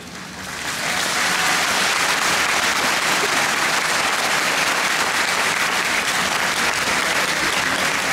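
Audience applause, swelling up within the first second and then holding steady.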